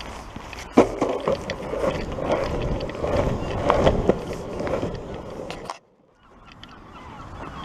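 Longboard wheels rolling over a pavement, with a rattling rumble and a sharp knock about a second in. The sound cuts out suddenly near six seconds and then builds back up.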